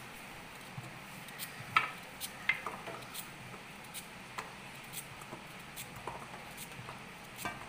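Knife cutting raw elephant foot yam held in the hand, with small sticks of yam dropping into a steel pan in sharp, irregular clicks, the loudest about two seconds in.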